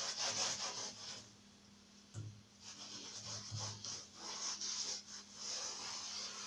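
Small scrubbing brush rubbed back and forth over an electric fan's protective grille, in quick repeated strokes. The scrubbing pauses about a second in, with a light knock, then resumes.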